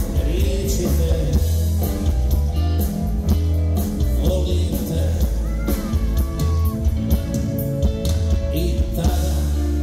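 Live rock band playing through a concert PA: a lead vocal sung over electric guitar, bass and keyboards, with a steady beat.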